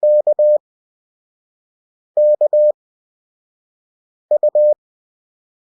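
Morse code (CW) practice tone: a single steady beep keyed in dots and dashes at 20 WPM character speed, with long Farnsworth gaps between characters. It sends three characters about two seconds apart: K (dash-dot-dash), K again, then U (dot-dot-dash).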